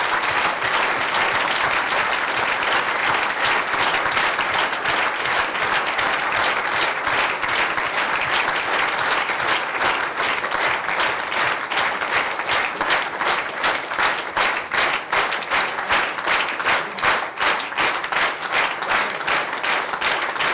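A hall full of delegates applauding loudly. About halfway through the clapping falls into a regular beat, clapping in unison.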